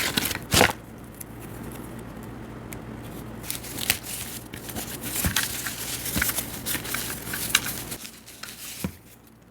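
Packaging being torn open and crinkled by hand: two sharp rips at the start, then a long run of crackling and rustling from about three and a half seconds in until near the end.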